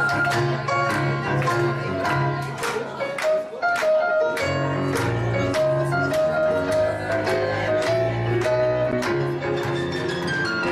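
Instrumental background music with a steady beat over bass and melody notes. It thins out for about a second a little past three seconds in, then comes back.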